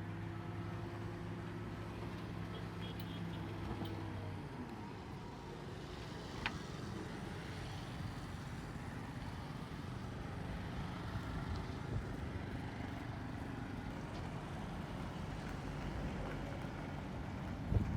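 Heavy diesel engine running with a steady hum that drops in pitch about four seconds in and turns to a rougher rumble. A single sharp click sounds about six seconds in.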